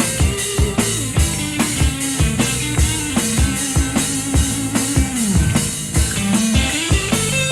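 Live rock band playing an instrumental break: drum kit keeping a steady beat with bass and keyboards under a held lead melody line that slides down and back up in pitch near the end.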